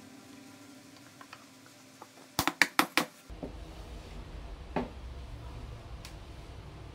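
Five quick, sharp knocks on MDF about two and a half seconds in, as the small wooden switch panel is fitted into its recess in the speaker box. After that comes a low room hum and one duller knock of the MDF box being handled.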